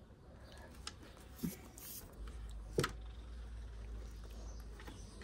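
Faint handling noises as a hand works at a Kangal puppy's mouth: a few soft clicks, the sharpest nearly three seconds in, over a low background rumble.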